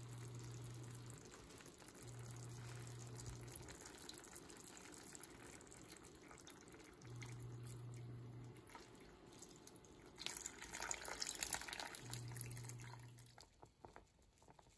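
Coconut milk being poured into a pan of simmering carrots, a liquid pouring and splashing that is loudest in the second half, over a soft, steady cooking sizzle. A low hum comes and goes four times underneath.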